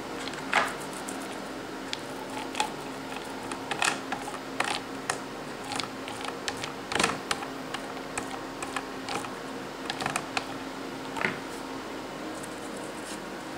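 Irregular taps, scrapes and short tearing sounds of adhesive tape being unrolled and pressed onto the wooden frame of a melodeon reed block on a plywood bench, over a steady low hum.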